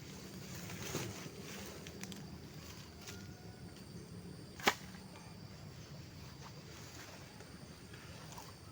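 Grass being slashed by hand, giving light scattered swishes with one sharp snap about halfway through.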